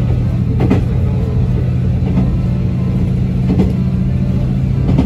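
Diesel engine of a KiHa 120 railcar running with a steady, unchanging hum, with three short knocks about a second and a half apart.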